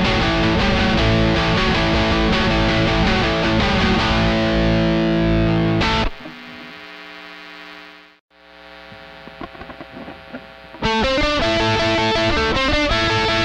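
Distorted electric guitar through a SansAmp GT2 on high gain, neck pickup, recorded with an off-axis mic. A riff on the Squier Telecaster's stock ceramic pickups ends about six seconds in with a chord ringing out and fading, the sound drops out briefly about eight seconds in, and about eleven seconds in a loud riff starts on the replacement Fender Tex-Mex pickups.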